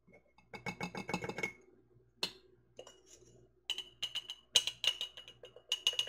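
A metal measuring spoon tapping and clinking against glass canning jars as seasoning is spooned in. The taps come in quick runs, a fast run about a second in and more toward the end, some with a short glassy ring.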